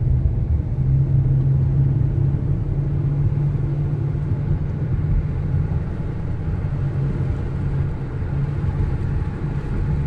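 Car cabin noise while driving at steady speed: a constant low engine hum over the rumble of tyres on the road.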